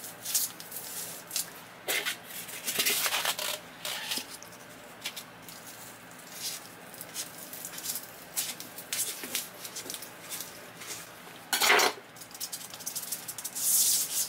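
Irregular short scrapes and crackles of styrofoam being pressed into a floor-to-wall gap and a putty knife working caulk over it, with one louder scrape near the end.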